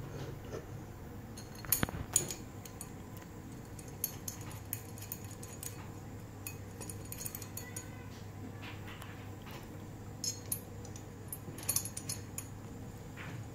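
Small metal clicks and clinks as an aluminium flange plate and its screws are handled and fitted onto a tripod mount, with sharper knocks about two seconds in and again near the end, over a faint low hum.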